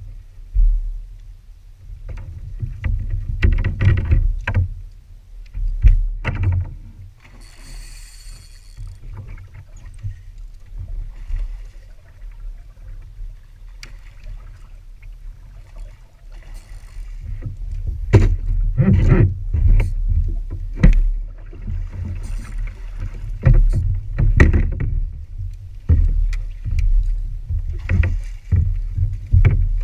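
Water slapping and splashing around a kayak, with repeated knocks on the hull over a low rumble; it grows louder and busier in the second half, and near the end a hooked snook thrashes at the surface beside the kayak.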